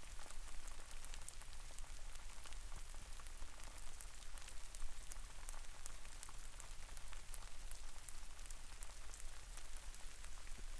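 Steady rain, with many separate drops striking close by as sharp little clicks over an even hiss, and a low rumble underneath.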